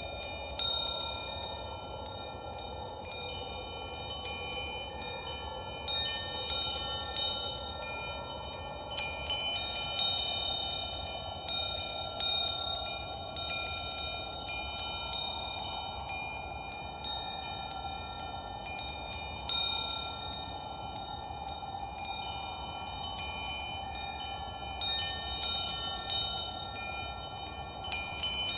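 Wind chimes ringing, struck at irregular moments with each set of notes ringing on, the strongest strikes about 9 seconds in and near the end. A soft steady rushing noise runs underneath.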